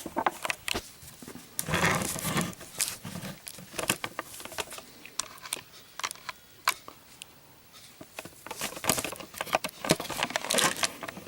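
Plastic sheets or packaging being handled: irregular crinkling and rustling with scattered sharp clicks and taps.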